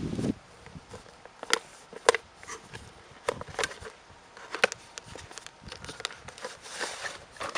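Scattered light clicks and rustles from a swimsuit's packaging being handled, coming at irregular moments.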